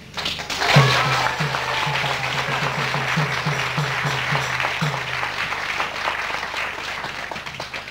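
An assembled crowd applauding and cheering, with a voice shouting near the start. Low beats, about three a second, run through the first five seconds.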